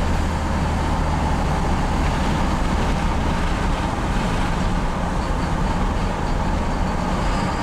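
In-cab sound of a Dodge Ram 2500's 5.9 L Cummins inline-six diesel pickup cruising at road speed: a steady low engine drone under even tyre and road noise. The engine runs smoothly, with no stumble or surge.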